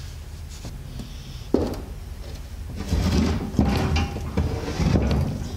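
Heavy steel truck steering knuckle being shifted and turned over on a wooden workbench: a sharp click about a second and a half in, then scraping and knocks in the second half.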